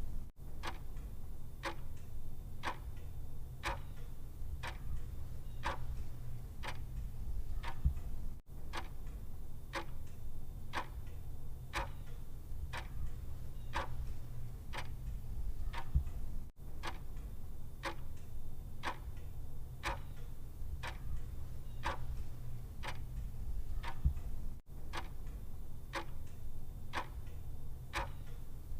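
Clock ticking steadily, about three ticks every two seconds, over a low steady hum. There is a brief dropout about every eight seconds.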